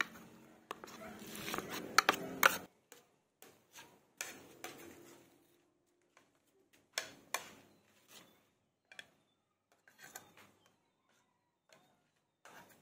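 Metal spoon clinking and scraping against ceramic plates as food is spooned out: scattered light clicks with quiet gaps between them.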